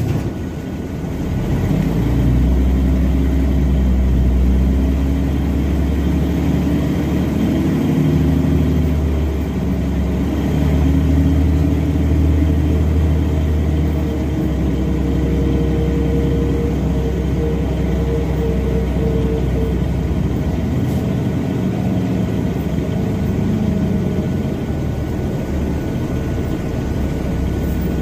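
Mercedes-Benz O305 city bus heard from inside the passenger cabin: its Mercedes-Benz OM707 diesel engine picks up about two seconds in as the bus pulls away, then runs on under load with its pitch rising and falling as it drives along.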